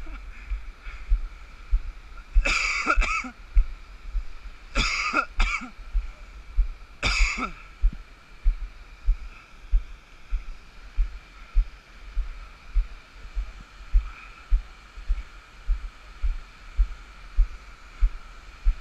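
Person sliding down a water-covered granite slab: muffled scraping and rushing water with a low thump about every half second, and three short cough-like bursts in the first half.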